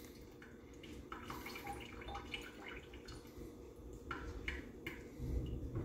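Water being squirted from a plastic syringe into a small glass sample bottle: faint liquid sounds with a few light clicks, over a low steady hum.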